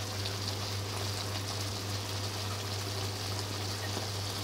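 Eggplant and tofu sizzling and simmering in a frying pan with a little water, heating up towards the boil: a steady hiss, with a steady low hum underneath.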